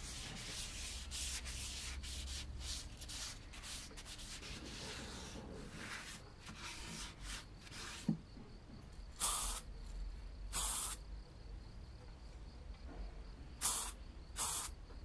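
A paper towel wiped and rubbed over a bare cast-metal coin-bank part in many quick strokes, degreasing it with acetone. Then four short hisses of primer being sprayed on.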